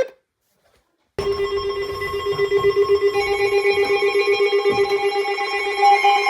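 About a second of silence, then a held electronic synthesized chord of steady tones, wavering rapidly in level. A higher note joins about two seconds after it starts.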